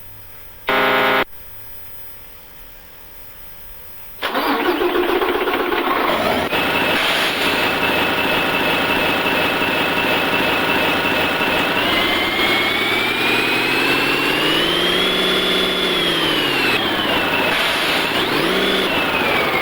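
Mitsubishi Fuso Fighter truck's 6M60 inline-six diesel: a short beep about a second in, then the engine starts about four seconds in and idles. Near the middle it is revved up and let fall back, with a high whine rising and falling with the revs, then blipped once more briefly near the end.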